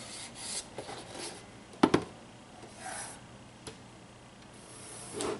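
Hands handling the parts of a display case's light base, with brief scuffs and two sharp clicks close together about two seconds in.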